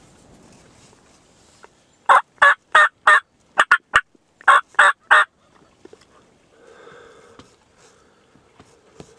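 Turkey yelping: a string of loud, short notes about three a second, four in a row, then two quick ones, then three more. A fainter drawn-out sound follows near the end.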